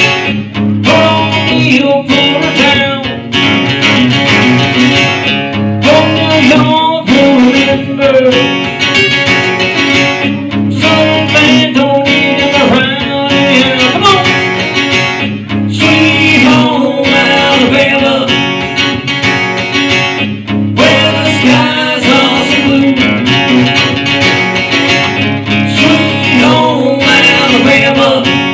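Live acoustic guitar strumming with a singing voice in a country style, amplified through PA speakers, in phrases with short breaks.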